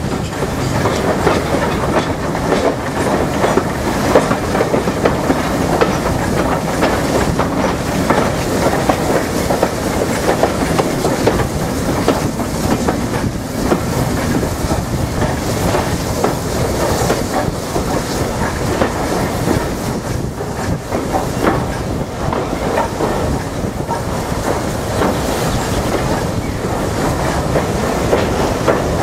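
Steam locomotive and tender running on the rails, heard from the footplate: a steady rumble with the clickety-clack of wheels over rail joints as the train drifts down the grade into the station.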